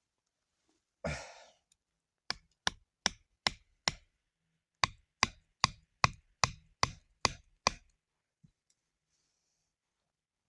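Repeated sharp strikes, like a tool chopping or knocking on wood: a run of five about 0.4 s apart, a short pause, then eight more at the same pace, each with a brief ring. A single short rustle comes just before them.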